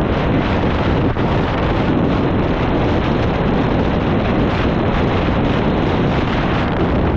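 Strong wind blowing across the microphone: a loud, steady rushing noise with no let-up.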